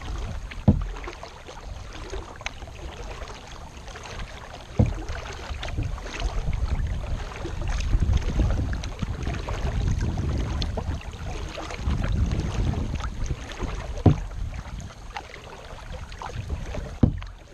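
Kayak paddling with water sounds and wind buffeting the microphone in low rumbling swells. About four sharp knocks are spread through it.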